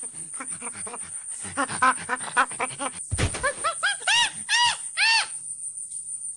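Pet monkey calling: a run of short rising-and-falling hoots, a thump about three seconds in, then a climbing series of longer, louder, higher-pitched whoops that stops a little after five seconds. Crickets keep up a steady high trill underneath.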